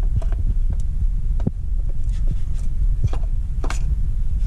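Low steady rumble of the microphone being handled, with a handful of light clicks and scrapes as the 4L60E's 2-4 band servo cover is thumbed into its bore in the transmission case.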